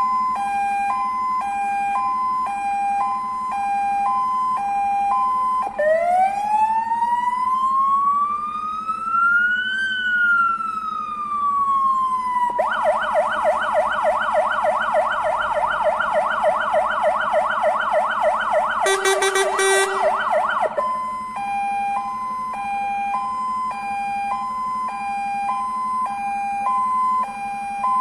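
Fire engine siren run through its modes on a MAN TGM 13.290 rescue-firefighting truck: an alternating high-low two-tone, then one slow wail rising for about four seconds and falling back, then a fast warble, with a short lower-pitched blast cutting in briefly near the end of the warble, before returning to the two-tone.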